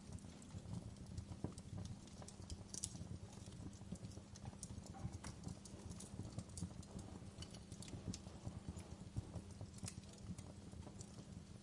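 Fireplace fire crackling: irregular sharp pops and snaps over a low steady rumble of the flames.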